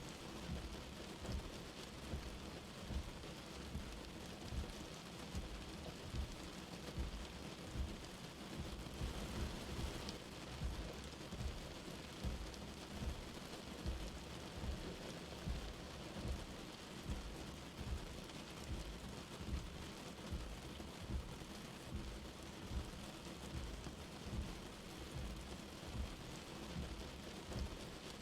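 Light rain falling steadily as an even hiss, with frequent dull low thuds, about one or two a second, from drops striking a surface.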